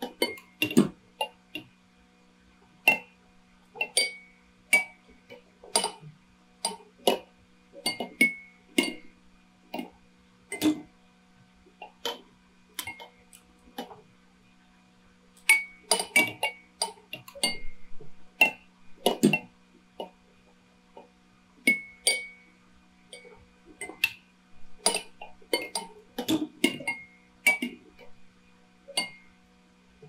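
Many drinking bird toys rocking and dipping, their beaks and heads clicking and clinking against the water glasses in an irregular patter. Some of the clinks ring briefly, and there are short lulls between busier runs.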